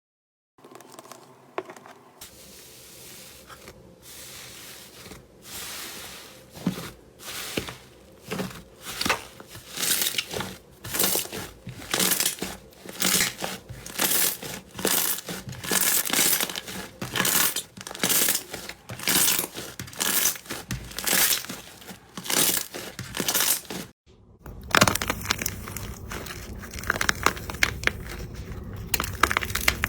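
Slime being pressed and squeezed by hand, making crackly squishes in a steady rhythm of about one and a half a second. After a brief break near the end, a denser, continuous crackling of slime being worked follows.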